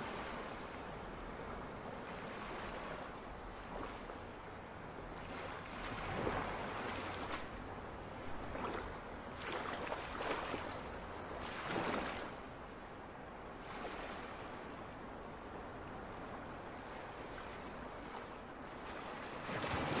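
Ocean surf: a steady rush of waves breaking and washing in, swelling every few seconds as bigger waves break, the loudest just at the end.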